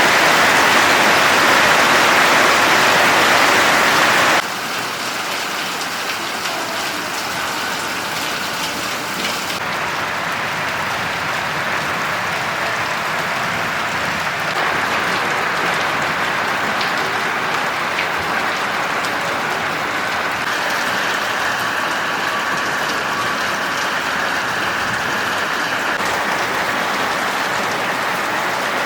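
Heavy rain falling and pattering on surfaces, a steady hiss. It is louder for the first four seconds, then drops suddenly, and its character shifts abruptly several more times.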